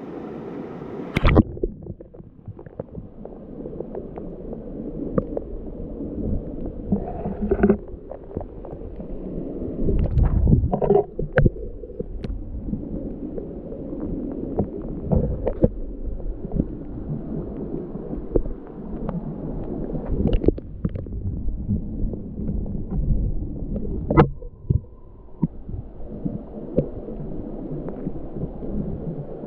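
Muffled underwater sound of a creek, heard through the camera's waterproof housing: a steady low rumble of moving water with scattered knocks and clicks.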